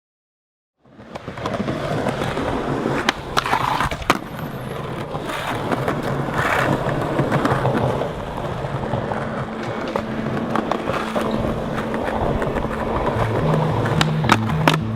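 Skateboard wheels rolling on concrete with sharp clacks of the board popping and landing tricks, starting about a second in. Low repeating bass notes of music fade in over the second half.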